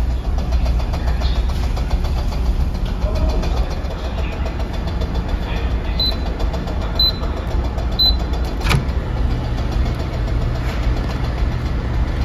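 Steady low drone of the ferry's engines, with three short high beeps about a second apart from a Panasonic commercial microwave signalling that heating is done, followed by a sharp click as its door is opened.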